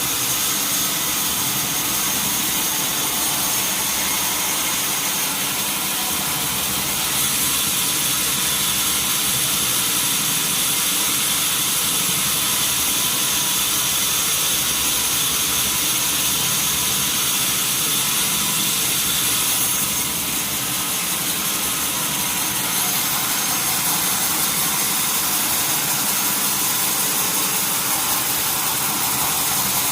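Sawmill wheel saw machinery running steadily: a constant high whine over a mechanical drone and hiss, which shifts slightly about 7 and 20 seconds in.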